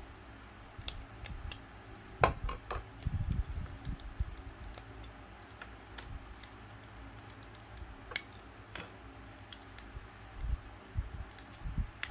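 Irregular small sharp clicks of hard plastic snap-fit model-kit parts being worked by hand, with a few soft knocks on the work surface. The loudest click comes about two seconds in.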